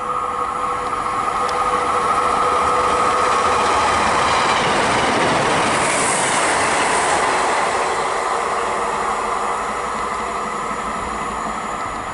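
Class 150 Sprinter diesel multiple unit passing through, its rumble and wheel noise swelling to a peak a few seconds in and then slowly fading as it moves away.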